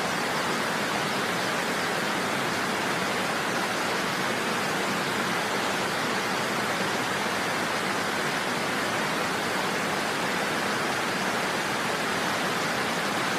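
Steady, even rushing hiss of noise that does not change, strongest in the middle and upper pitches.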